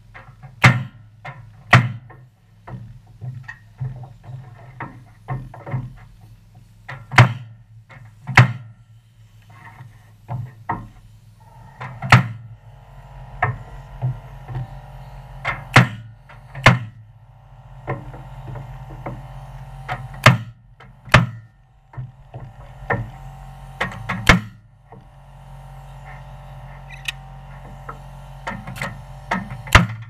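Pneumatic framing nailer firing nails into wooden roof boards: a string of sharp shots at uneven spacing, often one or two a second, sometimes in quick pairs.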